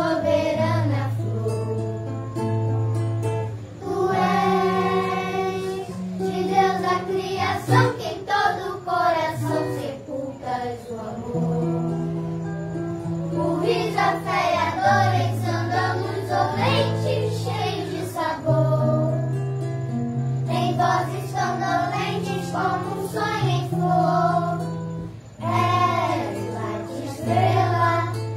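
A group of children singing a song together in Portuguese over a steady instrumental accompaniment with sustained bass notes.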